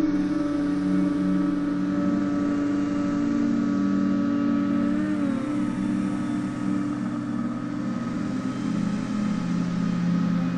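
Bixler 3 foam RC plane's electric motor and propeller droning steadily in flight, with a brief dip in pitch about halfway through as the throttle eases, over rushing airflow noise.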